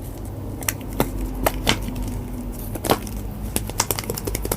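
Slime being squeezed and stretched by hand, giving a series of sharp little clicks and pops at irregular intervals.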